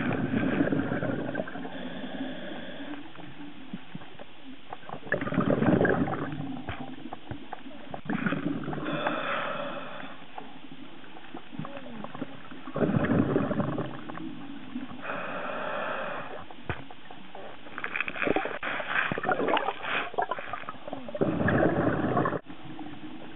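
A scuba diver breathing through a regulator underwater: a bubbling exhale alternating with a hissing inhale, one breath sound about every three to four seconds.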